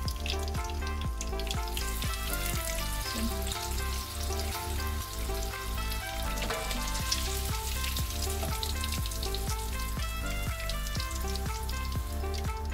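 Crackling sizzle of prawns deep-frying in hot oil, over background music with a steady beat.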